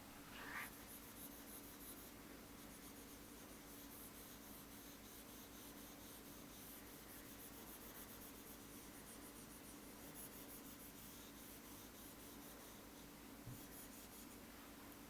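Faint scratching of a stylus drawn back and forth across an interactive whiteboard screen, in several short runs of shading strokes.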